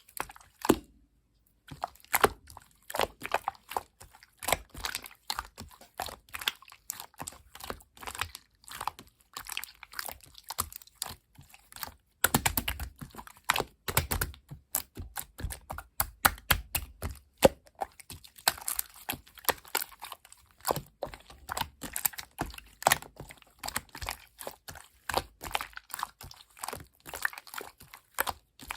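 Clear yellow slime being squeezed and worked by hand, a dense, irregular stream of small sticky clicks and pops, with a brief pause about a second in.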